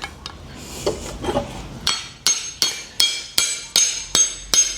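Repeated ringing metal-on-metal strikes, about three a second, starting about two seconds in. A screwdriver is being knocked into the steel socket of a slasher blade to drive out a broken wooden handle stub.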